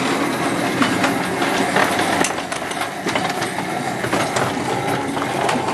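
A 7¼-inch gauge miniature train rolling along the track, with irregular sharp clicks and knocks from the wheels on the rails.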